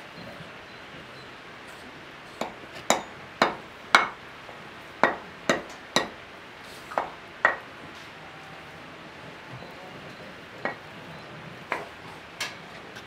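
About a dozen sharp knocks or clinks with a short ringing tail, coming at uneven intervals in loose clusters over a low steady background hiss.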